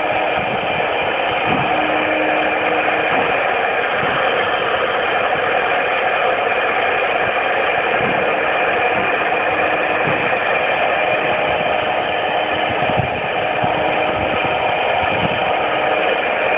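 CNC router running, its spindle and bit engraving and cutting a rubber sheet: a steady machine noise with constant whining tones at several pitches and a few faint low knocks.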